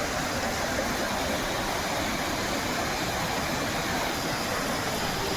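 Waterfall and stream water rushing: a steady, even noise.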